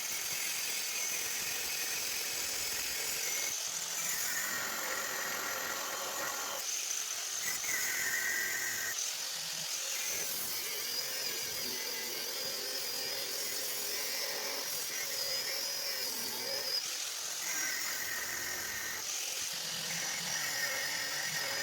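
Angle grinder with a cutting disc cutting through steel, running steadily with a high, wavering whine and a few brief dips as the disc bites.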